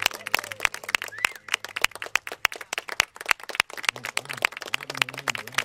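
Small audience clapping: many separate, uneven hand claps.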